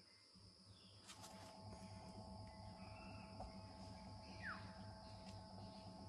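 Faint, steady insect chirring, like crickets, with a sharp click about a second in.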